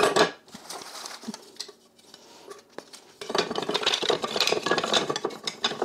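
Wooden kitchen utensils clattering and knocking against each other and the utensil pot as they are handled and set in: one sharp knock at the start, then a busy stretch of clatter from about three seconds in until near the end.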